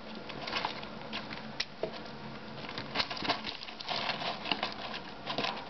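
Three-week-old rat pups scampering over loose pellet bedding: a busy, irregular patter of small feet with rustling and clicking of the litter.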